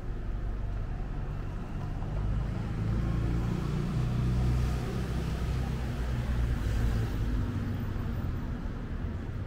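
A car driving past on the street: its engine and tyre noise build up over a couple of seconds, are loudest in the middle, and fade toward the end.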